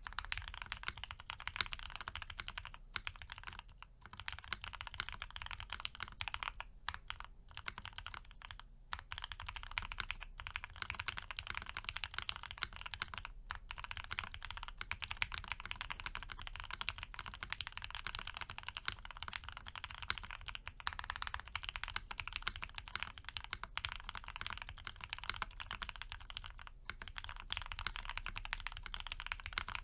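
Steady fast typing on a Piggy 60 custom mechanical keyboard with a polycarbonate plate, lubed and filmed Gateron FC linear switches and CRP APL keycaps: a dense run of keystroke clacks with a few short pauses.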